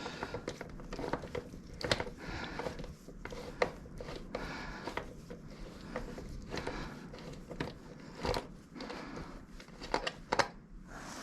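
Small irregular metal clicks and scraping as a nut is worked loose and turned off a bolt by hand, with a few sharper ticks scattered through.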